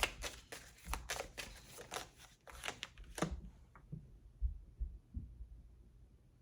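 Tarot cards being shuffled by hand: a quick run of crisp flicking snaps that stops about three seconds in, followed by a few soft, low thumps.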